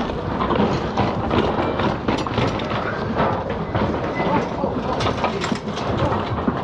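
Super73 electric bike bumping down a flight of stairs, its frame and fittings rattling and knocking on step after step.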